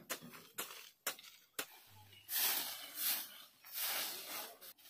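Dry grass and leaves being pulled and handled: a few sharp snaps about every half second, then three loud rustling swishes in the second half.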